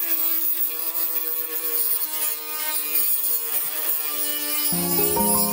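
Dnipro-M MG-12 cordless rotary tool running near full speed, its abrasive cut-off disc grinding into steel rebar: a steady high motor whine that wavers under the load of the cut, over a hiss of grinding. Music comes in near the end.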